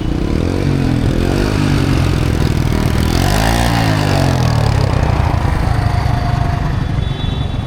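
Motorcycle engines running close by on a busy street, loud and steady. The engine note rises and falls twice, about half a second in and again around three seconds in.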